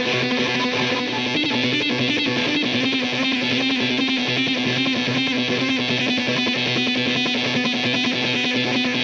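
Electric guitar played through a Death By Audio Fuzz War fuzz pedal into a Peavey 6505MH amp: dense, heavily fuzzed riffing with a steady low rhythmic chug.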